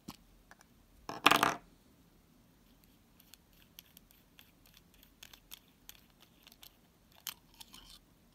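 Metal clinks and clicks from an all-metal Jinhao 250 fountain pen being taken apart by hand: a loud ringing metallic clatter about a second in, then a run of light ticks and small clicks as the metal barrel is worked off the section, with a sharper click and a short rattle near the end.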